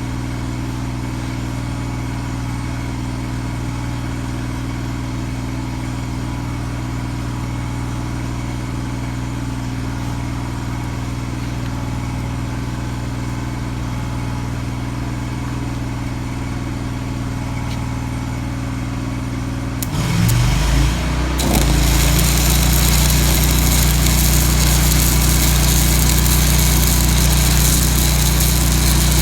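Lincoln Ranger 250 engine-driven welder running steadily at idle. About 20 seconds in, a stick arc is struck with a 3/16 in 5P+ rod at 250 amps: the engine revs up under the welding load and the arc gives a loud, steady crackling hiss. The setting is too hot for this rod.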